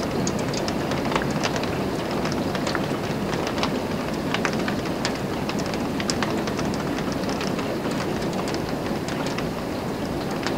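Steady heavy rain, with many individual drops ticking sharply on a hard surface close by.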